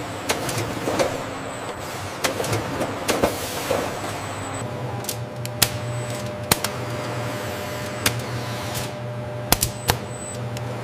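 Packaging machinery running: a steady low hum with a rushing whir for the first half, then a scatter of sharp mechanical clicks, several close together near the end.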